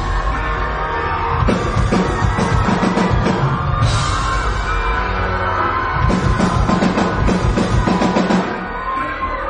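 Live rock drum solo on a full drum kit: a loud, dense run of fast drum hits, slightly easing near the end, recorded on a phone in the audience.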